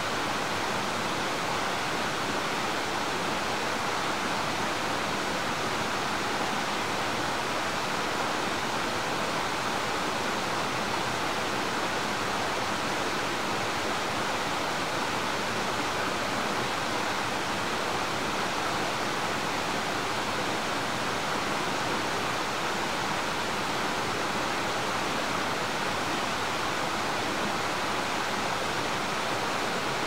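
Steady rush of flowing river water, an even hiss that does not change.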